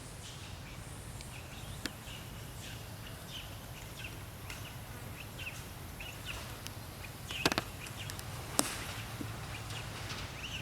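Outdoor ambience with birds chirping in many short calls over a steady low rumble, and a few sharp clicks, the loudest two in the second half.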